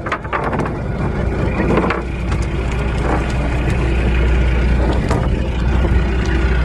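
Fishing boat's engine running with a steady low hum, growing louder over the first couple of seconds and then holding steady.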